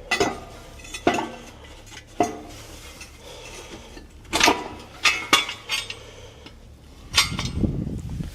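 Steel parts and tools clinking and clanking as they are handled: a dozen or so sharp, irregular metallic clinks, with a brief low rumble near the end.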